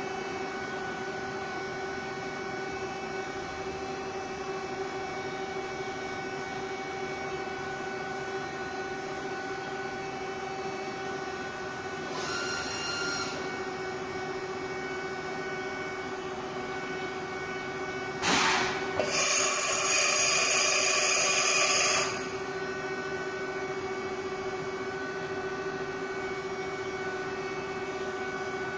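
Double column machining center running with a steady hum and held tone. A short whine comes about twelve seconds in. A sharp knock about eighteen seconds in is followed by about three seconds of loud hissing whir with high tones, then the steady hum again.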